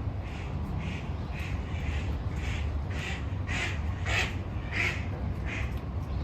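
A bird giving a series of harsh, cawing calls, about two a second, growing louder toward the middle and then easing off, over a steady low rumble.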